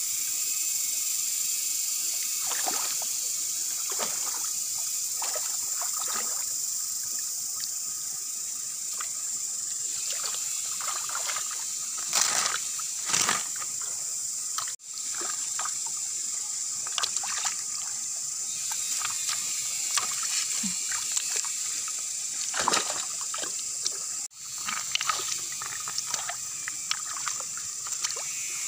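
Hands splashing and sloshing in a shallow rocky stream, with water trickling around the stones, over a steady high-pitched insect buzz.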